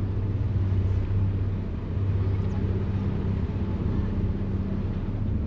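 Harbour ferry's diesel engine running under way with a steady low drone, over the rush of water churned up in its wake.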